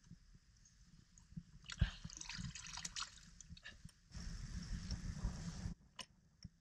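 Seawater splashing and trickling around bare feet dangling in the ocean, in small irregular splashes, then a steadier rush of water noise for a second or two.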